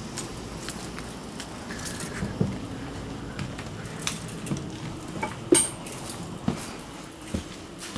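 Keys jingling and footfalls on a motorhome's entry steps: scattered light clinks and knocks, with a sharper metallic clink about five and a half seconds in.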